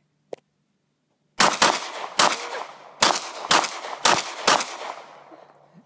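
.40-caliber Glock 22 and Glock 23 pistols firing: a rapid string of about seven shots over about three seconds, starting about a second and a half in, each shot trailing off in echo.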